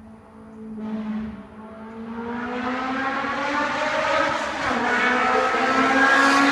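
Honda S2000 four-cylinder engine, fitted with a test pipe and a 70mm Invidia exhaust, accelerating hard: the exhaust note climbs steadily in pitch and grows much louder from about two seconds in.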